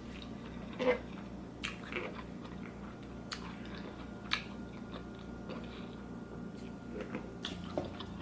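A person chewing food close to the microphone, with irregular soft crunches and mouth clicks about a second apart.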